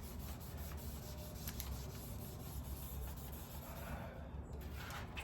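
A cloth rubbing back and forth over a fender filler panel, wiping shop grime off its surface.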